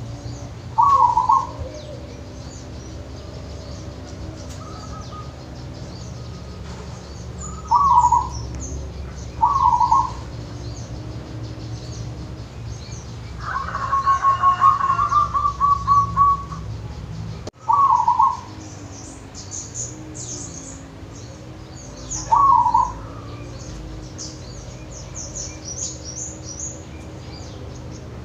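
Zebra dove (perkutut) cooing: five short, loud coos a few seconds apart, and about halfway through a longer coo of rapid repeated notes. Small birds chirp high-pitched in the second half.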